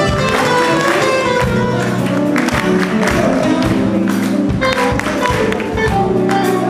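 A live band plays an upbeat soul-jazz number with a steady drum beat and electric guitar.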